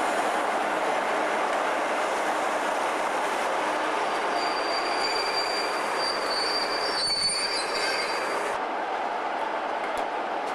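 Passenger coaches of a Class 47–hauled charter train rolling slowly past along a station platform with a steady rumble of wheels on rail. High wheel squeal comes in about four seconds in and lasts about four seconds before the sound drops back.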